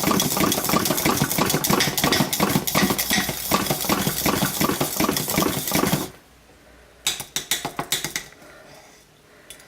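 A whisk stirring thick hot-process soap paste in a cooking pot, rattling and scraping quickly against the pot. The stirring stops about six seconds in, and a few lighter taps follow a second later.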